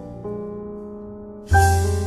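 Soft background piano music: a held chord slowly fading, then a new chord struck about one and a half seconds in.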